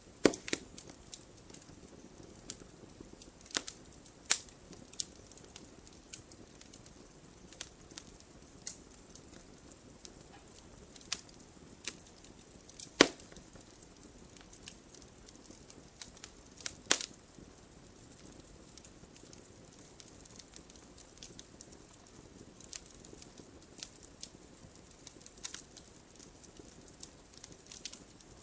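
Wood fire burning in a fireplace, crackling and popping irregularly over a soft steady hiss, with a few louder pops now and then.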